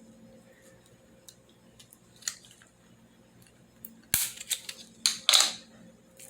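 Handwork with scissors, tape and a plastic straw: faint scattered clicks, then a cluster of loud, short, sharp crackling bursts about four seconds in.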